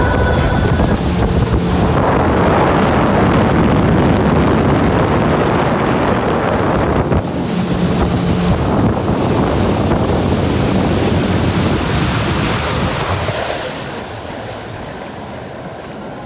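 Motorboat running at speed: wind buffeting the microphone over the rush of water along the hull and the churning wake. The noise drops and softens about two seconds before the end.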